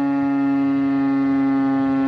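Federal Signal STH-10 electromechanical outdoor warning siren sounding a loud, steady tone with a rich set of overtones, its pitch sagging very slightly.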